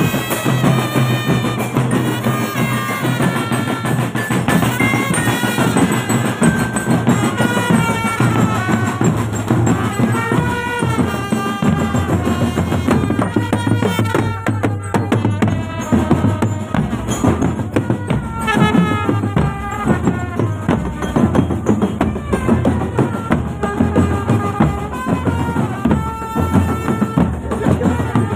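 Marching drum band playing a tune: a constant beat of snare and bass drums under a melody that steps up and down in short notes.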